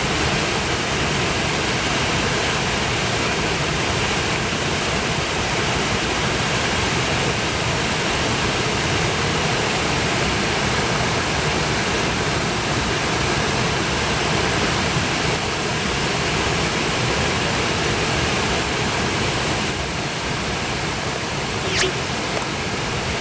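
Steady rush of falling water from Shiraito Falls, a low, wide waterfall where hundreds of thin streams of spring water spill over a curved rock face. A brief sharp tick sounds near the end.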